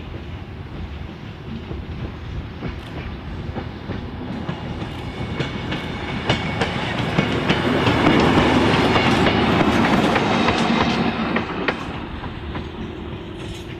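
Victorian Railways DERM 63RM, a 1930 diesel-electric rail motor, approaching and passing close by. Engine and wheel noise grow louder to a peak a little past the middle, with the wheels clicking over rail joints, then fade as it draws away.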